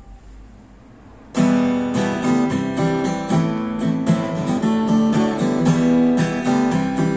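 Faint hiss, then about a second and a half in an acoustic guitar starts strumming chords in a steady rhythm: the instrumental intro of a song.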